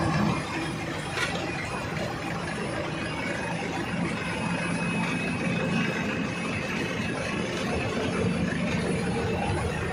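Diesel dumper truck's engine running steadily under way, with road noise, heard from inside the cab. There is a single faint click about a second in.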